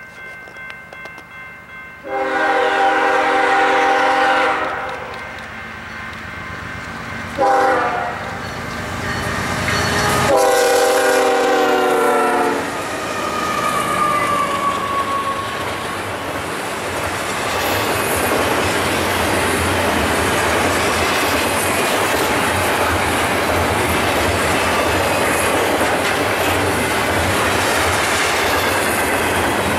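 BNSF diesel freight locomotives' air horn sounds a long blast, a short blast and another long blast as the train approaches. The locomotives then pass, and a long double-stack container train rolls by with steady wheel-on-rail rumble and clickety-clack.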